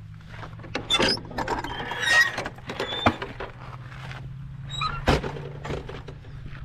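A gate being opened and shut: a hinge squeaking, with sharp knocks of the gate or latch about one, three and five seconds in.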